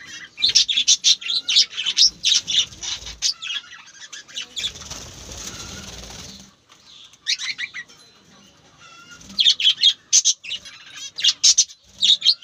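Small birds chirping in rapid clusters of short, high notes. Partway through, the chirping gives way for about two seconds to a rushing noise like wings flapping, then picks up again.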